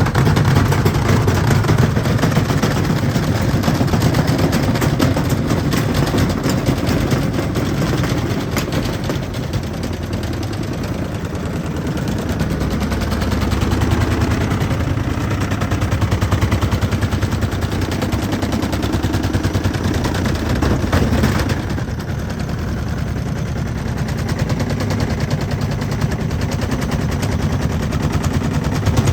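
Beko washing machine spinning with its concrete counterweights removed. The drum rattles and knocks very rapidly and loudly against the cabinet, easing a little twice before picking up again.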